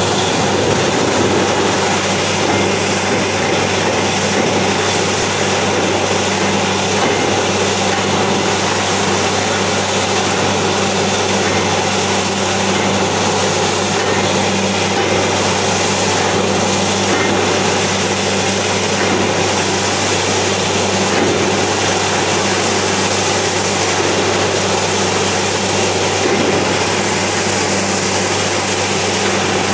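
Truck-mounted water-well drilling rig running steadily with a low hum, while water gushes and splashes out of the borehole around the drill string.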